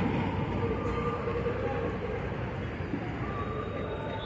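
Bus diesel engine running with a steady low rumble.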